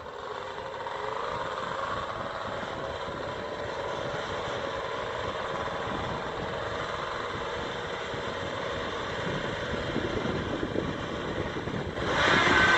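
Snowmobile engines running steadily at idle, then revving sharply and getting much louder near the end.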